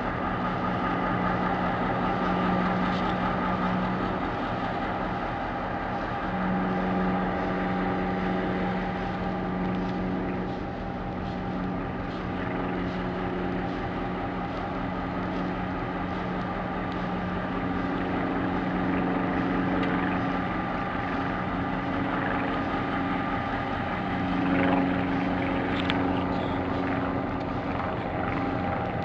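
EMD 645 V8 diesel engine of a DBR class locomotive idling steadily, a continuous low engine drone.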